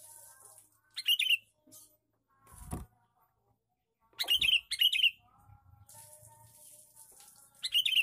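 Caged male sooty-headed bulbul (kutilang) calling: short, loud, sharp notes in quick groups, three times, with softer whistled notes between them. A dull knock comes just before the middle.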